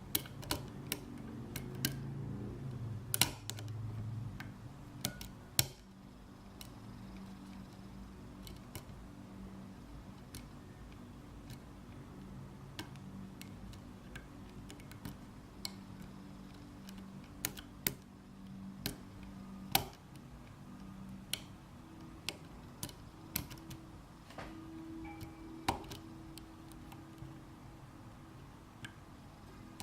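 Irregular small metallic clicks and ticks of a lock pick working the pins of a six-pin GERA (ISEO) euro pin-tumbler half cylinder, over a low steady hum.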